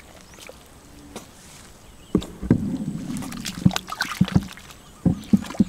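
Hands sloshing and slapping in shallow muddy water: quiet for the first two seconds, then a wet slosh followed by a string of short slaps and plops.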